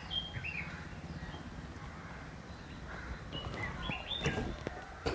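Birds chirping in short calls, with a few sharp clicks and knocks near the end from the plastic pump head of a portable pressure washer being pressed onto its motor housing.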